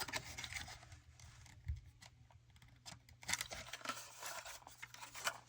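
Faint clicks and light scrapes of a small plastic toy spaceship being handled, as its top panel is worked open.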